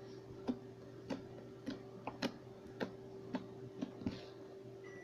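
Fluffy slime being poked, giving small soft clicks about twice a second at a slightly uneven pace, over a faint steady electrical hum.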